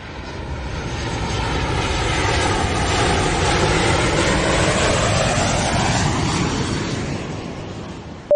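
Airplane flyover sound effect: aircraft engine noise swelling to its loudest about midway, then fading away.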